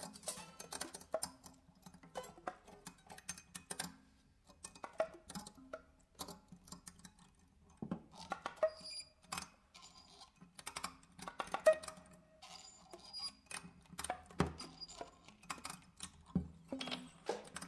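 Sparse free improvisation on prepared guitar and soprano saxophone: scattered clicks, taps and rattles with a few short held notes, the loudest about twelve seconds in.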